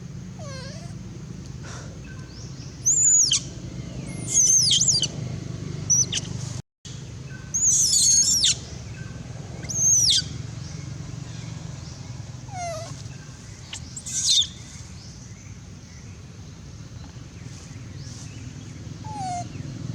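Baby long-tailed macaque crying: short, high-pitched squealing cries that sweep up and down in pitch, about half a dozen times with pauses between them, over a steady low hum. The cries are the distress calls of an infant separated from its mother.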